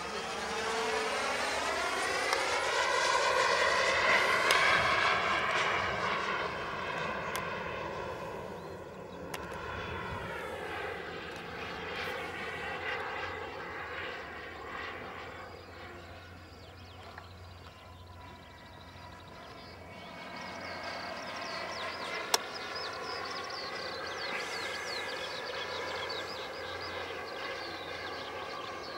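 Model jet turbine of an RC de Havilland Vampire flying past overhead. Its whine climbs in pitch and swells to its loudest about four seconds in, then drops in pitch and fades toward the middle, and rises and swells again near the end.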